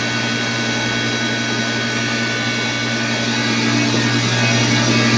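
Electric water pump motor running with a steady mains hum and whir, on its newly installed bearings. The hum grows a little louder near the end.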